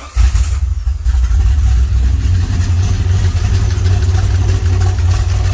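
A 1981 DeLorean DMC-12's PRV V6 starting from cold: it catches right at the start and settles into a steady fast idle, with a slight tick that the owner suspects is in the valve train.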